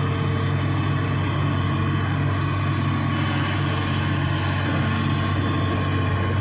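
Hitachi excavator's diesel engine running at a steady pitch, with a hiss added for a couple of seconds in the middle.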